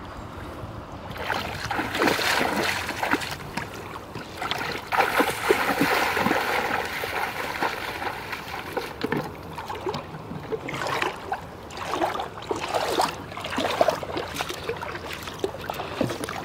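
Shallow river water splashing and sloshing irregularly around a person wading knee-deep while hauling in a fishing line. The splashing starts about a second in.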